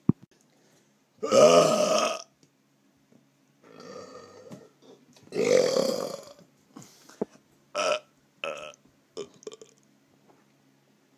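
A man belching: two long, loud belches of about a second each, with a fainter one between them and a run of shorter belches after.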